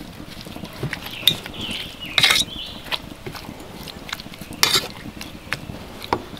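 Metal fork clinking and scraping against a copper saucepan as it mixes chunks of fish and herbs, with a handful of sharp clinks spread out, the loudest a little over two seconds in.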